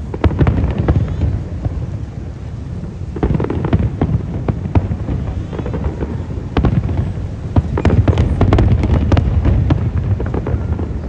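Aerial fireworks display: a continuous run of deep booms with clusters of sharp crackling bursts, densest a few seconds in and again through the second half.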